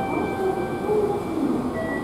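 Shinkansen train running at the platform: a steady, heavy rumble with short whining tones that step up and down in pitch.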